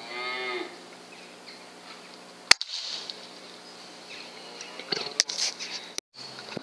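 A single sharp report from a Weihrauch HW100 .177 PCP air rifle firing once, about two and a half seconds in. A short pitched animal call comes right at the start.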